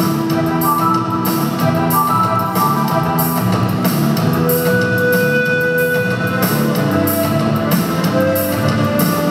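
Pan flute melody played over an accompaniment with a steady drum beat. About halfway through comes one long held note.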